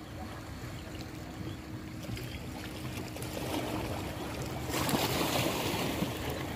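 Water washing and trickling along the hull of a wooden outrigger canoe moving through calm shallow water. The water grows louder about halfway through and peaks as a rush of water about five seconds in.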